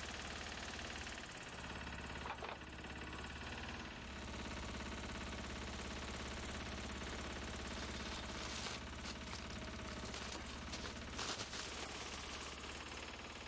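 Rail-maintenance machine's engine running steadily, with a few sharp knocks, one about two seconds in and others near the end.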